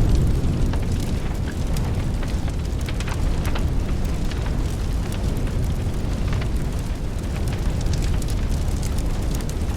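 Gym ambience on a phone microphone: a steady low rumble with scattered light knocks and clicks.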